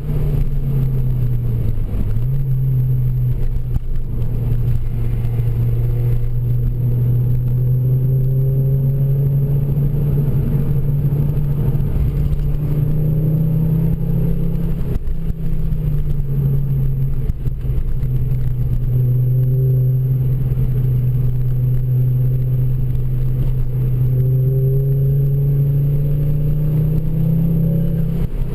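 Ford Focus RS MkII's turbocharged 2.5-litre five-cylinder engine with a Milltek exhaust, heard from inside the cabin while driving, revs rising and falling: a dip about two seconds in, a long climb, another drop around fifteen seconds, then climbing again.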